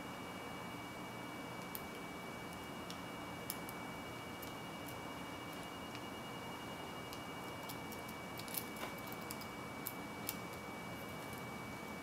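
Faint, scattered metallic clicks of a lock pick and tension wire working the pins inside an Abus Discus padlock, with a short cluster of clicks about two-thirds of the way in. Under them run a steady hiss and a faint high whine.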